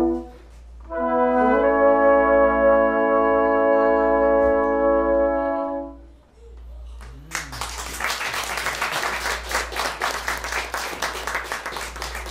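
Brass quartet of trumpets and low brass holding a final sustained chord of about five seconds, which cuts off; after a short gap, audience applause follows to the end.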